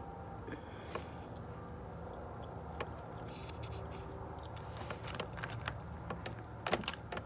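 Eating sounds: fingers picking through a seafood boil in a plastic tub, with chewing and mouth sounds, heard as scattered small clicks and crackles that come thicker near the end.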